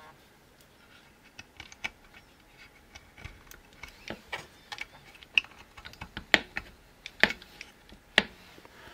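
Small plastic clicks and taps of cable connectors being pushed onto a circuit board's header pins and the parts being handled. An irregular scatter of clicks, with a few sharper ones in the second half.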